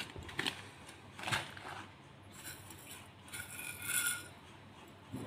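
Small metal jewellery-making tools being handled and set down on a table: a few light knocks in the first second and a half, then a longer metallic clinking with a faint ringing about two and a half to four seconds in.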